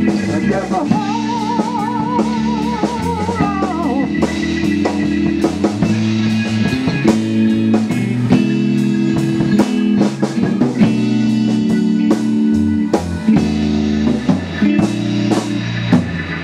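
Live band playing an instrumental passage of a slow blues-soul song: electric guitar and drum kit over steady bass and chords, with a held, wavering high note in the first few seconds.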